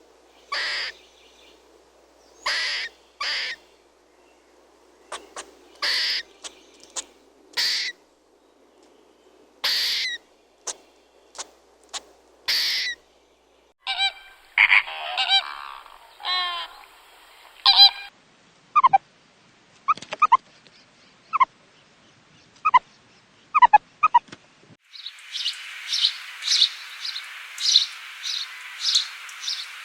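Several different animal and bird calls, one after another. First comes a series of short, loud calls every second or two; then a denser, different call; then short falling chirps. From about 25 seconds in there is a steady buzzing chorus with regular chirps.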